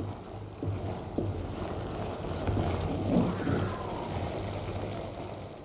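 Cream sauce with chicken pieces simmering and sizzling in a non-stick pan while it is stirred with a wooden spatula, over a steady low hum.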